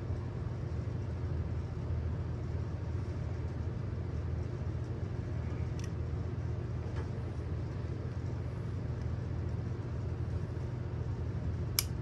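Steady low hum, with a few faint metal clicks from the Ozark Trail 15-in-1 multi-tool's folding tools being handled and a sharper click near the end.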